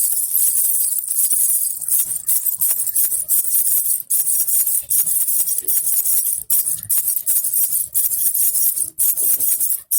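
Baby rattle with small jingle bells (jhunjhuna) shaken continuously, a bright metallic jingling with a few brief breaks.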